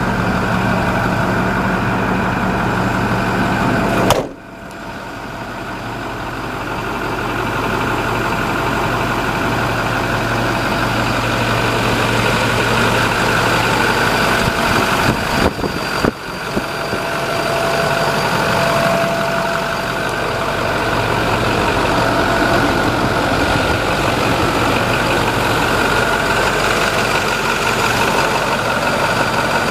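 2009 International 4300 LP truck's diesel engine idling steadily. The sound drops sharply about four seconds in and recovers over the next few seconds, with another brief dip near the middle.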